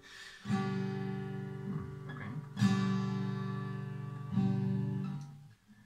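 Yamaha LS-TA steel-string acoustic guitar strummed: three chords about two seconds apart, each left to ring out and fade, the last dying away almost to nothing.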